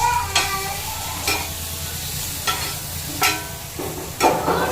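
Food sizzling as it fries in a pan, with a handful of sharp utensil clicks against the pan.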